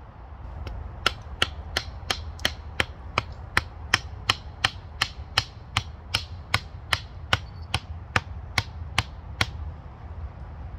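A hatchet knocking a wooden stake down into the ground, about three sharp, even strikes a second, some two dozen in all, stopping shortly before the end. The stake is being driven in to hold the log wall of a raised fire pit firm.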